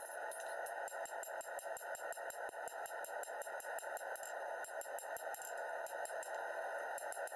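Hand hammer striking a hot 1070 steel sword blank on an anvil in a rapid run of many blows a second, as the blade is tapered toward the tip.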